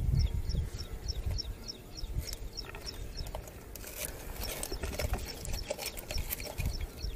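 Steel pliers clicking and scraping against a lure's treble hooks while they are worked loose from a snakehead's mouth, over low handling rumble. Behind it, a high chirping call repeats about five times a second, fainter after the first few seconds.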